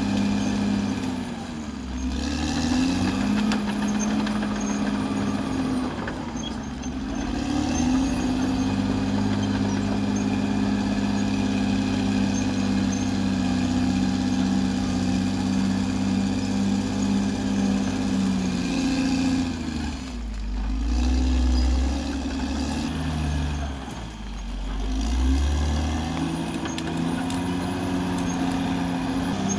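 Caterpillar D6R XL bulldozer's diesel engine running hard under a steady pitched note. It dips in pitch and climbs back about four times as the load or travel changes.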